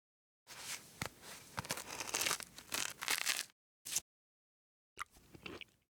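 Foley sound effects: a crackly, rustling noise full of small clicks lasting about three seconds, then a short sharp burst, and near the end a brief scratchy rustle.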